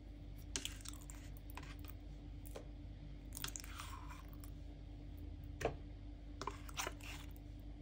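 Spoon scooping thick sour cream out of a plastic tub and scraping it into a plastic mixing bowl: a handful of soft, wet scrapes and light taps, one of them longer a little after the middle, over a faint steady hum.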